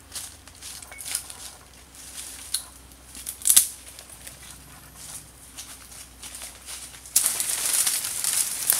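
Footsteps and brushing through jungle undergrowth: scattered crackles and rustles of leaves and twigs, turning about seven seconds in to a louder, continuous crunching of dry palm fronds.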